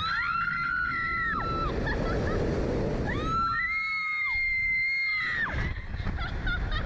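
Two women screaming on a Slingshot reverse-bungee ride as it launches: a long, high, held scream at the start and another from about three seconds in, with wind rushing over the microphone between them.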